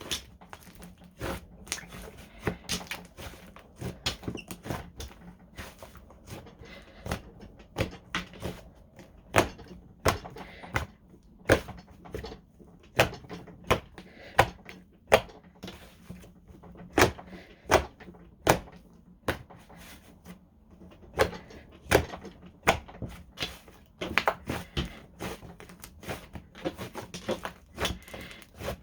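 Thick slime being kneaded and stretched by hand, making irregular sticky clicks and pops, several a second.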